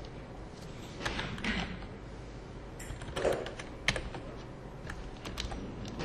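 A few scattered computer keyboard keystrokes, sharp separate clicks bunched a little past the middle and again near the end.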